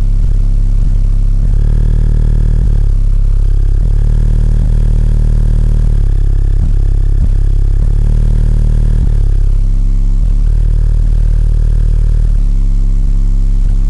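Bass-heavy music played very loud through two 12-inch Ground Zero subwoofers in a car, the deep bass notes changing about once a second and the recording saturated throughout.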